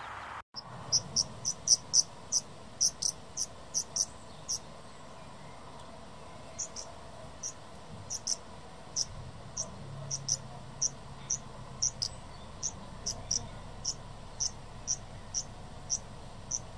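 An insect chirping in short, sharp, high-pitched chirps, about one to two a second, over a faint steady hiss. The chirps pause for about two seconds midway, then go on.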